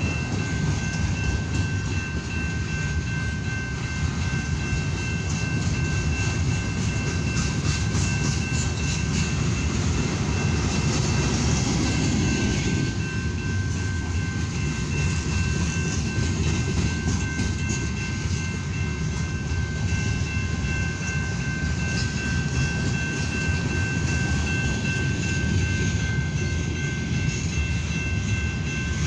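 Freight cars rolling past on steel rails: a steady low rumble of wheels on track, with scattered clicks as the wheels cross rail joints.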